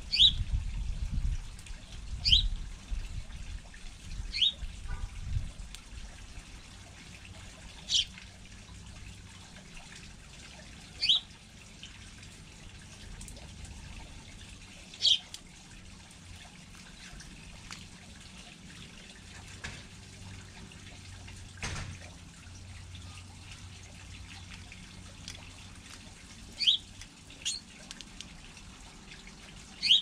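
Sparrows chirping: single short, high chirps every few seconds, about ten in all, some in quick pairs near the end. A low rumble of wind on the microphone runs under the first few seconds.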